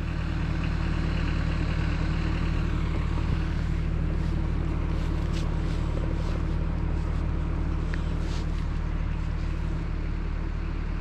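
Vehicle engine idling steadily, a constant low hum under a faint hiss.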